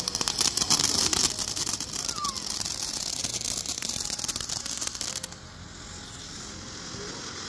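Ground fountain firework spraying sparks with a dense crackling hiss, which cuts off suddenly about five seconds in; a fainter hiss follows.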